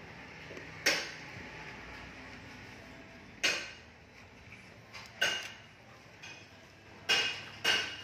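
Sliding side door of a 2008 Hyundai Starex van being worked by its handle: five or six sharp metallic clicks and knocks from the handle and latch at irregular intervals, two close together near the end.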